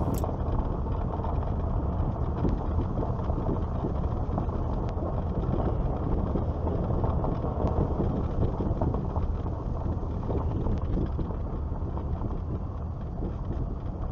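Car rolling slowly along a gravel road, heard from inside the cabin: a steady low rumble of tyres and engine with scattered small ticks of gravel under the tyres.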